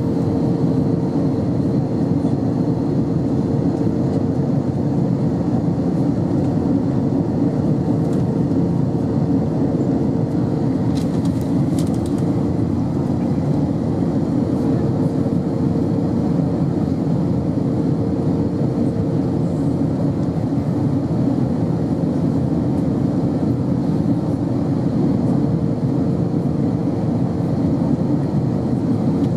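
Airbus A321 cabin noise heard from a window seat over the wing: steady engine and airflow noise with a constant hum, the aircraft on approach with its flaps extended.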